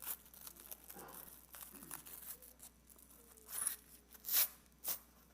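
A belt being fitted and fastened around a person's waist: a handful of short ripping, rustling noises, the loudest three in the second half.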